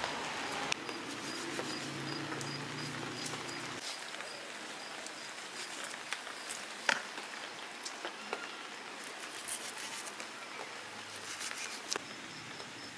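Steady light patter of rain with an insect's faint, evenly pulsed high trill, and scattered small clicks and taps of a knife cutting raw chicken pieces over a steel bowl, the sharpest click about seven seconds in.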